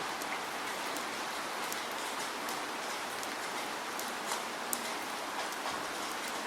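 Steady rain falling, with individual drops ticking sharply here and there over an even hiss.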